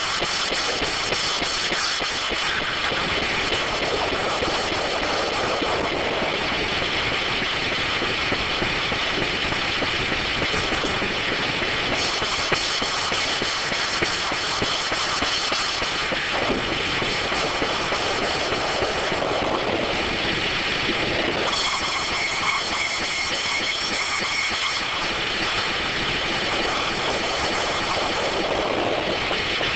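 StrojCAD D9 circular sawmill running, with steady machine noise and a high whine from the spinning saw blades. The whine grows stronger for a few seconds about 12 seconds in, and again just after 21 seconds.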